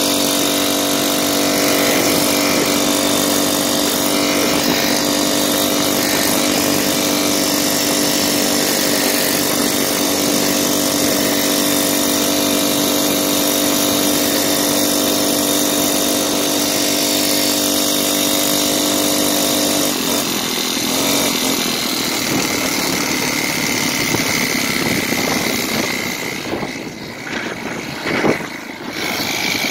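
Small Honda four-stroke engine on a motorized bicycle running at a steady speed, with wind and road noise. About twenty seconds in, the steady engine note breaks up, and near the end the sound goes quieter and uneven, with one brief bump.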